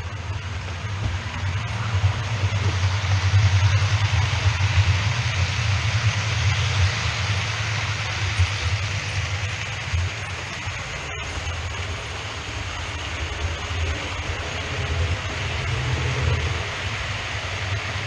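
OO gauge model train running on the layout's track: a steady low hum with a broad hiss, loudest a few seconds in and then steady.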